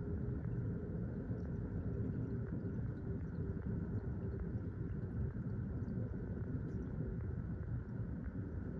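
Low, steady jet rumble of a Qantas Airbus A380's four Rolls-Royce Trent 900-series engines passing overhead, with a faint steady tone in it that weakens as the aircraft moves away.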